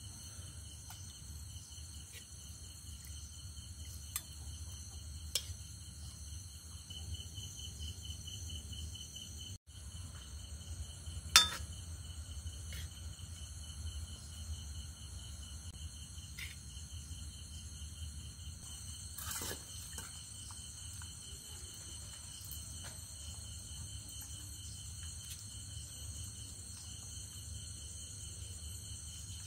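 Night insects chirping steadily over a low hum, with a few sharp clinks of metal utensils against steel bowls; the loudest clink comes about eleven seconds in.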